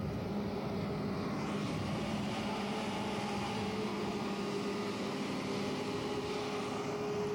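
A steady engine-like hum with an even rushing noise over it.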